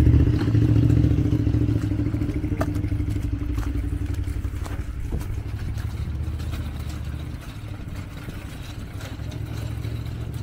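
A motor vehicle's engine running close by, a low steady drone that slowly fades away, with a few faint clicks over it.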